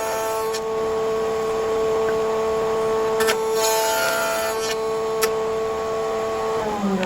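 Electric power-tool motor running with a steady whine, then switched off near the end, its pitch beginning to fall as it spins down.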